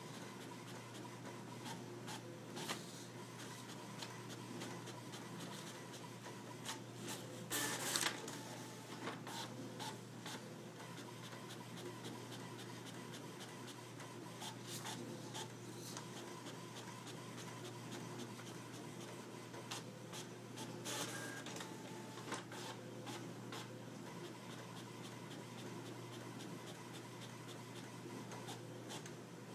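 HP inkjet printer printing, running with many small clicks as paper feeds out. Two louder bursts come about eight seconds in and again about twenty-one seconds in.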